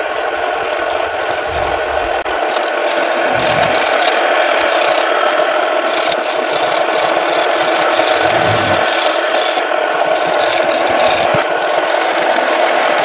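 A homemade lathe chisel ground from an old sickle blade cutting into a spinning wooden spindle on a wood lathe: a loud, steady scraping rasp of steel shaving wood.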